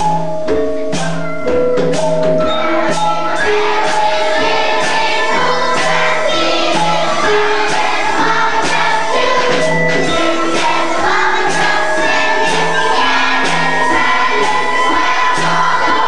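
A children's school ensemble performing a song: pitched instruments and a steady percussion beat, with children singing.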